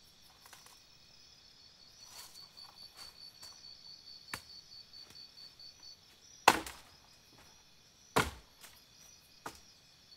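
High chirping that pulses in a steady rhythm, with four sharp knocks spread through it; the loudest knock comes a little past halfway.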